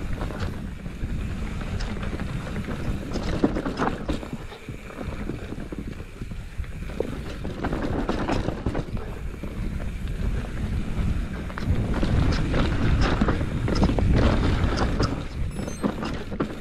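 Wind buffeting the microphone over the bumping and rattling of a bike ridden down a rough trail, uneven throughout, with scattered knocks and a louder stretch near the end.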